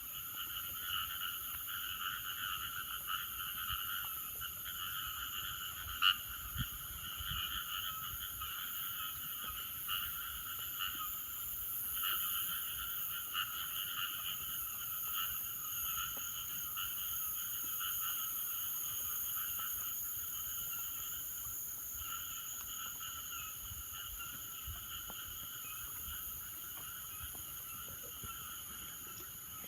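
A chorus of frogs calling continuously, layered over a steady high-pitched trilling of night insects. One sharp click about six seconds in.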